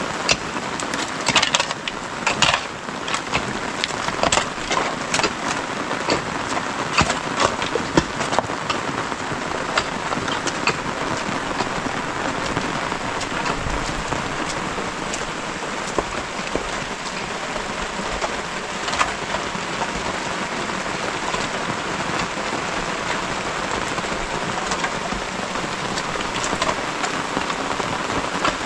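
Steady rain falling on wet ground. Sharp scrapes and knocks of shovels working mud and stones come through it in the first ten seconds or so, with a few more later.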